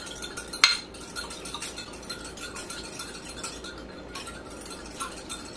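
Small metal whisk stirring cornstarch into water in a glass measuring cup, its wires ticking lightly and rapidly against the glass, with one sharper clink a little over half a second in.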